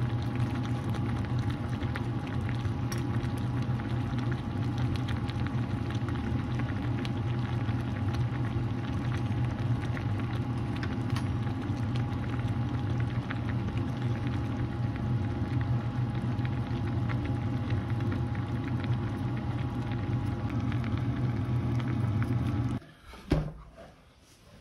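Udon broth boiling in a stainless steel pan on an electric cooktop: a steady low rumble with small bubbling ticks and a thin steady whine. It cuts off suddenly near the end.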